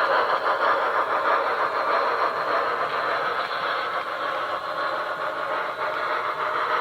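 Sound decoder in a 1/80-scale D51 steam locomotive model (Tenshodo Quantum Sound) playing a steam locomotive's exhaust chuffing and hiss through the model's speaker. The chuffing is rapid and steady and eases slightly in loudness.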